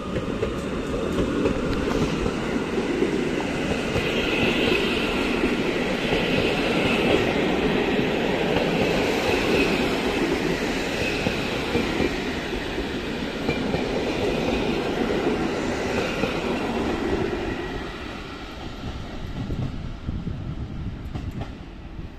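Passenger coaches of a departing PKP Intercity train rolling past on the rails, the wheels clattering over the track with brief high squeals every couple of seconds. The sound drops away about eighteen seconds in as the train pulls off.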